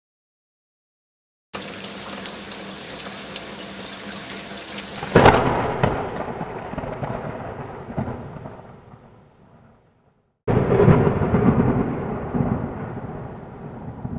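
Steady rain hiss, then a clap of thunder about five seconds in that rumbles away over several seconds, and a second long rumble of thunder starting about ten seconds in and fading toward the end.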